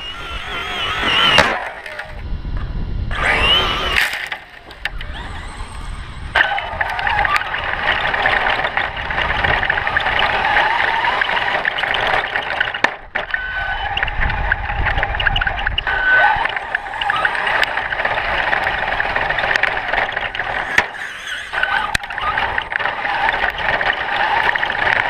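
Electric motors of Traxxas E-Maxx RC monster trucks whining as they are driven, with scattered knocks and clicks as the trucks run over rough ground. The whine rises in pitch twice in the first few seconds, then holds fairly steady.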